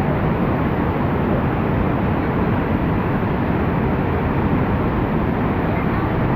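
Waterfall roaring: a loud, steady rush of falling water.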